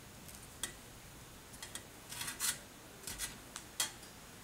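Dried red jujube being pitted with a bamboo chopstick against a ceramic plate: a few small clicks and short scrapes as the stick pushes the pit through, the sharpest click near the end.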